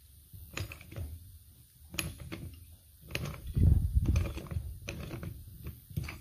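Metal-on-metal clicks and scrapes of a pipe wrench working a threaded steel pipe nipple and fitting clamped in a Bigfoot Ultralight pipe vise, as the threaded joint is broken loose and turned. There is a louder stretch of about a second a little past halfway, and more clicks near the end as the wrench comes off.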